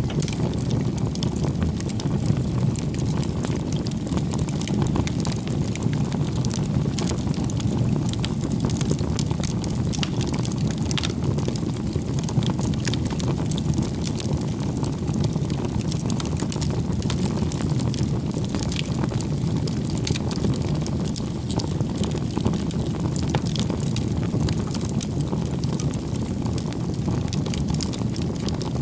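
A wood campfire burning, with a steady low rush of flame and frequent small crackles and pops of burning wood.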